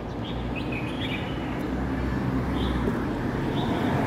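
Street traffic hum with a low rumble of passing vehicles that slowly grows louder, and a small bird giving short high chirps about once a second.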